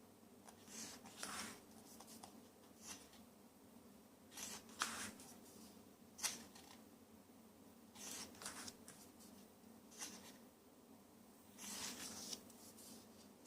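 Paper rustling in short strokes, one every second or so: the pages of a photo essay book being turned and handled. A faint steady hum runs underneath.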